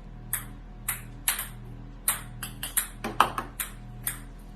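Ping pong balls bouncing on a hard surface: a string of about a dozen sharp, light clicks at irregular spacing, coming in quicker runs in the middle.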